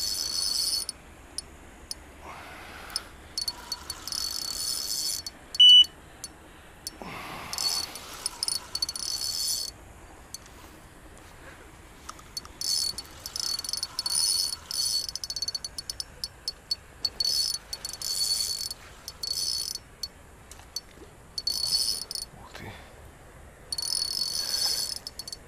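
Night insects chirping in repeated high, buzzy bursts a second or two long, with scattered faint clicks. About six seconds in, one short, loud high beep.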